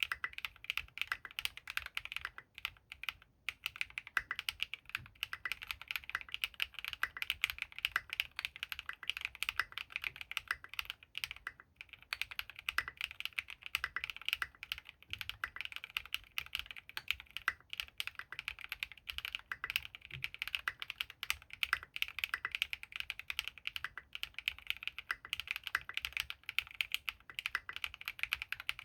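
Continuous fast typing on a custom mechanical keyboard: Gateron RAW switches lubed with Krytox 205g0, in an aluminium-plate Geonworks Frog TKL, under Signature Plastics SA keycaps. A dense stream of key clacks with no pauses longer than a moment.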